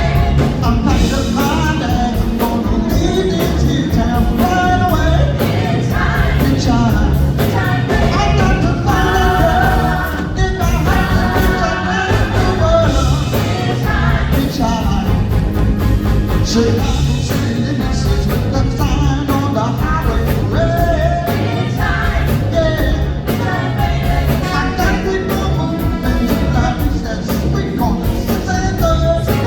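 Live band performance of an upbeat soul song: a lead singer over drums and bass keeping a steady beat.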